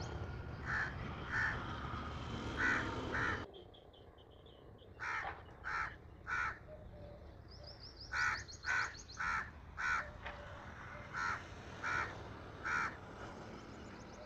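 A crow cawing repeatedly, in four bouts of three or four caws about half a second apart.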